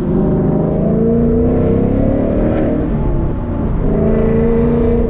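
2019 Mustang GT's 5.0 L V8 through a Corsa Xtreme active catback exhaust in track mode, accelerating hard. The pitch climbs, breaks for a gear change about three seconds in, then climbs again.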